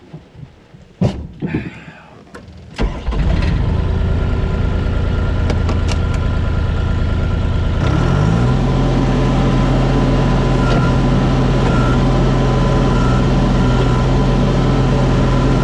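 A few clicks and knocks, then the John Deere 250 skid loader's diesel engine starts about three seconds in and idles, and is throttled up near eight seconds to run steadily at a higher speed.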